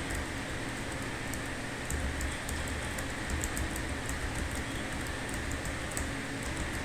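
Typing on a computer keyboard: quick, irregular key clicks, several a second, over a steady background hiss and low hum.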